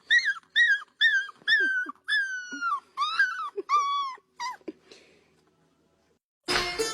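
A dog whining in a quick series of about ten high-pitched cries, some drawn out and falling in pitch, stopping short of five seconds in. Music comes in near the end.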